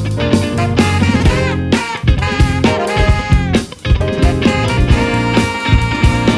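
Live band playing a funk tune, with a pitched lead line that bends in pitch over a steady drum beat. The band drops out briefly about three and a half seconds in.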